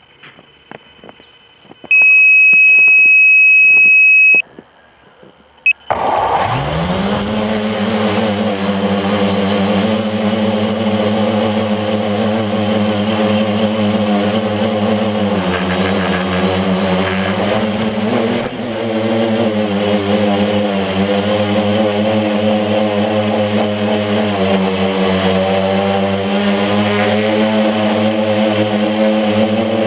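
Mini FPV tricopter: a loud steady electronic beep for about two seconds, then about six seconds in its three electric motors spin up and run as a steady propeller drone with a high whine, the pitch dipping and rising a few times with the throttle. The uploader puts the copter's vibration down to a bent motor shaft.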